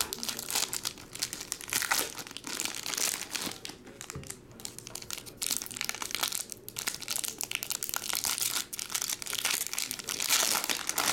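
Plastic-foil trading-card pack wrappers being torn open and crinkled by hand, an uneven crackling rustle that is loudest near the end.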